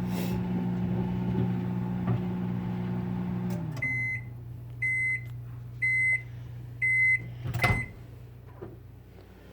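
Microwave oven running with a steady hum that winds down about three and a half seconds in as the 2-minute cycle ends. Then come four high end-of-cycle beeps about a second apart, and a sharp clunk from the door being opened.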